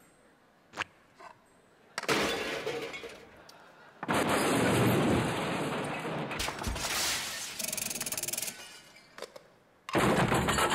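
Live foley sound effects: a few small clicks, then crashing, shattering noise about two seconds in, a longer and louder crash from about four seconds ending in a fast rattle, and another short crash near the end.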